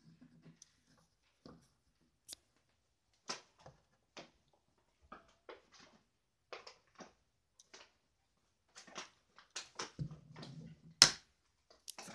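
Quiet, scattered taps and scrapes of kittens' paws and a plastic star wand toy on a wooden tabletop, with one sharp knock about eleven seconds in.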